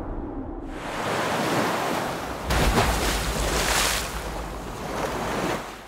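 Ocean waves washing onto a sandy beach: a steady rush of surf that swells twice and fades out near the end.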